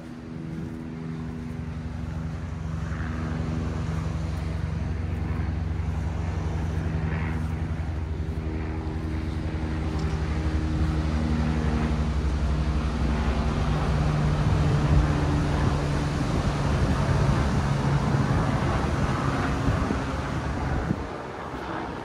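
An engine running steadily with a low pitched hum that grows louder, shifts in pitch about halfway through and stops near the end.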